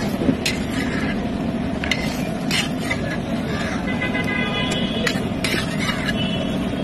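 A slotted metal spatula scraping and tapping against a large iron pan several times as an omelette is folded and pushed, over steady street noise. A few brief high tones sound around the middle.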